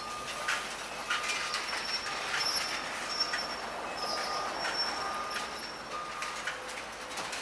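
Link-Belt excavator demolishing a building: metal squealing in short, repeated high-pitched bursts, with small clatters and knocks of debris between them.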